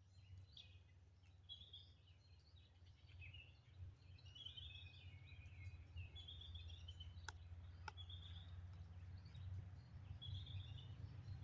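Faint birdsong: short chirping phrases, one about every second, over a steady low rumble. There are two light clicks a little past halfway through.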